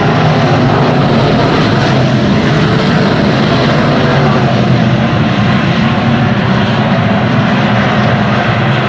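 Stock car engine running loud and steady, its pitch holding with little change.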